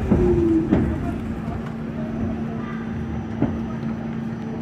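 New York City subway train running in the tiled underground station: a low rumble with a steady hum and a couple of sharp clanks.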